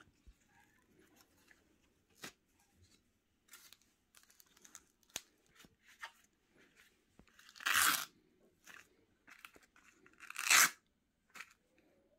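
Hook-and-loop (Velcro) straps of an Ecco Offroad sandal being pulled apart: two loud ripping sounds, about eight seconds in and again some two and a half seconds later, each lasting about half a second. Between them come soft clicks and taps as the sandal is handled.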